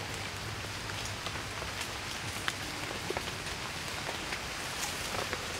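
Steady rain falling on forest foliage, an even hiss with scattered sharp ticks of single drops striking leaves.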